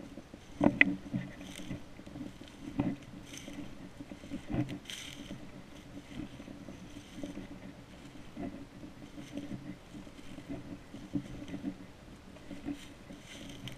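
Footsteps crunching and rustling through dry oak leaf litter at a slow, stalking pace, a crunch every second or two, the loudest in the first five seconds.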